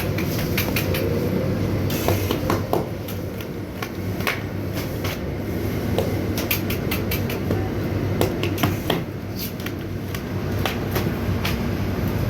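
Bakery machinery running with a steady low hum, with irregular clicks and clattering knocks throughout.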